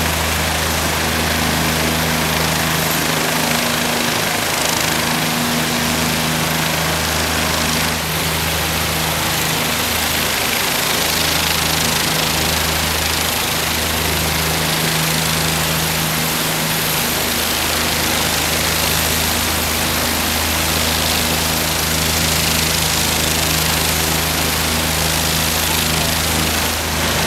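OH-58D Kiowa Warrior helicopters running on the ground with their main rotors turning: a steady low hum from the turboshaft engines and rotors under a broad turbine hiss.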